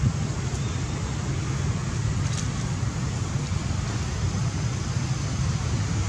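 Steady low rumble with an even hiss of outdoor background noise, unchanging throughout, with no distinct events.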